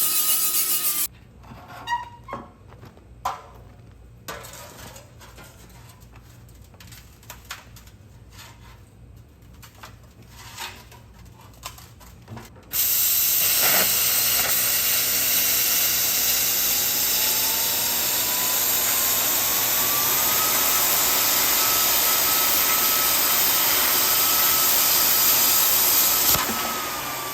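Grinder grinding down welds on a steel muffler: a short burst at the start, then scattered quieter scrapes and knocks, then a long stretch of continuous grinding whose pitch climbs and then holds before stopping near the end.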